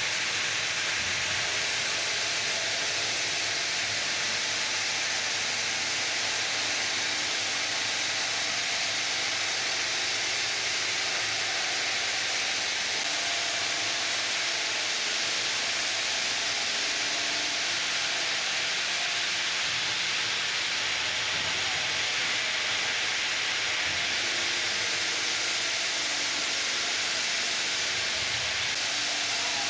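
Ring-system granite cutting machine cutting a granite block: a steady, high hissing grind with faint steady tones underneath.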